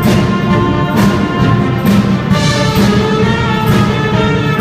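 Brass band playing live, with tuba, trumpets, saxophones and a bass drum, over a steady drum beat a little under a second apart.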